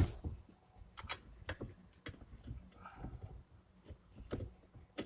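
Irregular light clicks and knocks of metal brackets and bolts being handled and fitted back onto an ATV engine, the sharpest knock right at the start.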